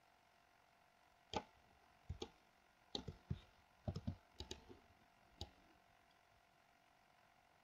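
Faint clicks of a computer keyboard and mouse, about a dozen sharp clicks in irregular groups, starting about a second in and stopping a little past halfway.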